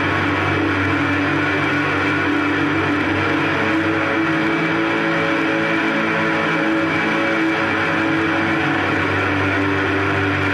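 Electric guitar played through a Fender valve combo amplifier: continuous picking builds a dense, ringing wash of sustained notes over a low held note, steady in loudness with no breaks.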